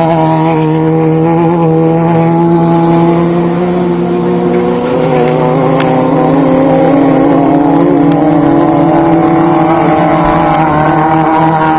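Off-road race vehicle engines running, with several steady engine notes at once. One note climbs slowly in pitch through the middle and another drops a step about five seconds in.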